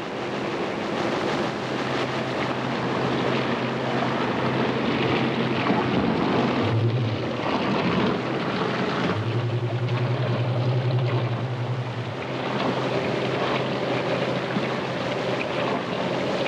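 Machinery of a concrete hollow-block factory running: a steady motor hum and rattle, with a louder low buzz for about three seconds starting about nine seconds in.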